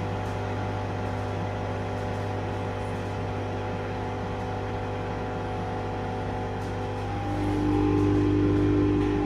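Washing machine running a Cottons 40 cycle: a steady electric hum with several steady tones, swelling louder with a stronger whine for about two seconds near the end.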